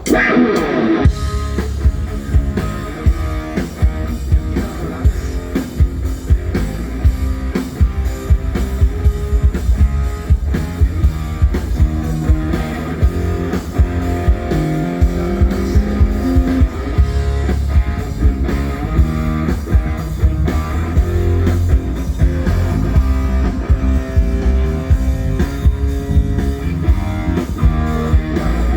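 Live pop-rock band, with drum kit, bass and electric guitar, playing a song's chorus through the PA as a sound check run-through, over a steady drum beat.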